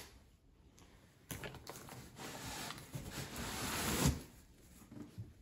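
Rustling of cardboard box flaps and plastic wrapping as a boxed artificial Christmas tree is unpacked by hand. The rustle starts about a second in, builds, and dies down about four seconds in.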